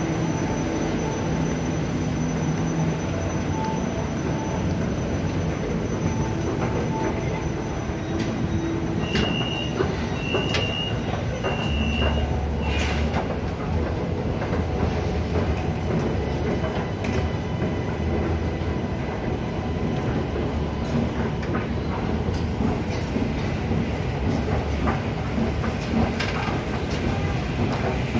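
Steady rumble of a train in an underground metro station, with a few faint steady tones in the first seconds. Three short high beeps come about nine to twelve seconds in.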